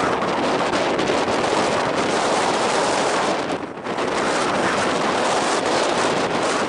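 Strong wind buffeting the microphone, a loud rushing that eases for a moment about three and a half seconds in, then cuts off suddenly at the end.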